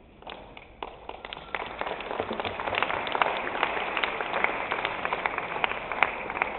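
Audience applauding: scattered claps about a second in that build to steady, dense clapping over the next couple of seconds.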